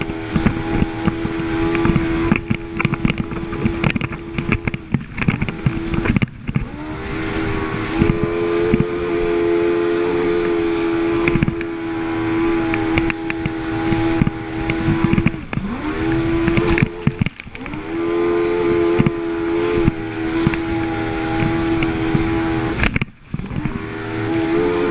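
Jet ski engine running at high revs, its pitch dropping briefly several times and climbing back again.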